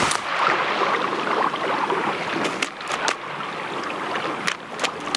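Running stream water, a steady rushing and gurgling, with a few scattered sharp clicks over it.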